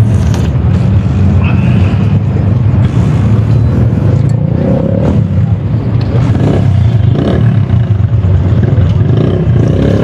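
A steady low engine rumble, with light scrapes of a metal spoon in a small soup cup.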